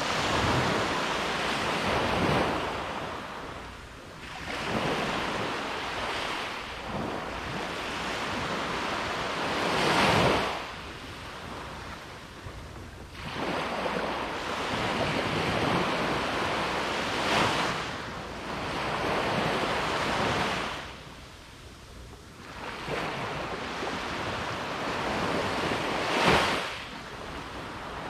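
Ocean waves breaking and washing up on a beach, surf swelling and falling away every few seconds. The biggest breaks come about ten, seventeen and twenty-six seconds in.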